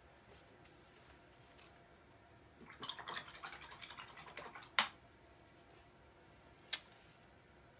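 Small painting tools being handled: about two seconds of quick light rattling and clicking, then a sharp click, and another sharp click about two seconds later.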